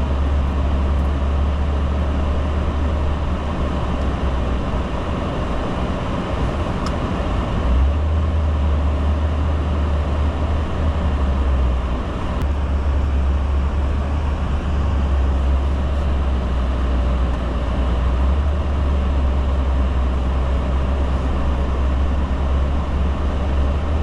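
A vehicle driving, its engine running with a steady low drone.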